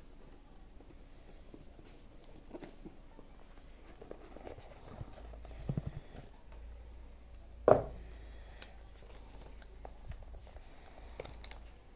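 Cardboard packaging box being handled and opened: soft rubbing and scraping of card, a few light taps, and one sharp knock a little before the eight-second mark.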